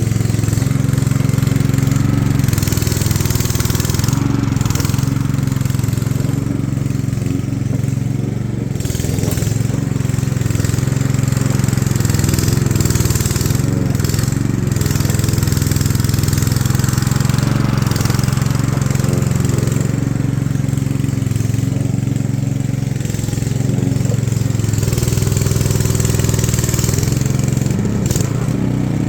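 Remote-control lawnmower's engine running steadily, a constant low drone without a break.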